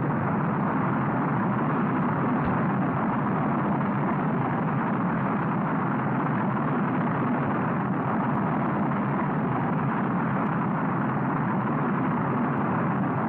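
Saturn V rocket at liftoff, its first-stage F-1 engines firing: a steady, dense rumble that holds at an even level.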